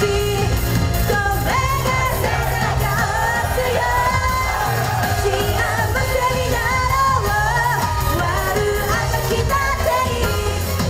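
Live J-pop idol performance: a young woman singing into a handheld microphone over an upbeat pop band backing with a steady drum beat.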